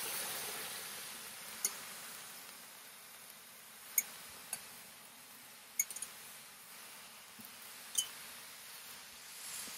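Bourbon basting sauce sizzling as it hits a hot cast-iron griddle: a hiss that is strongest at the start and slowly dies away, with a few scattered sharp ticks.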